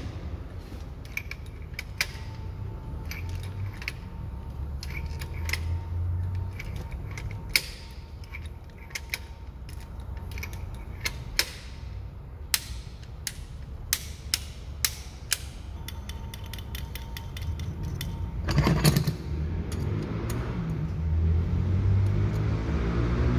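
Scattered metallic clicks and clinks of hand tools and parts being handled in a car's engine bay, over low rumbling handling noise, as a spark plug is being changed.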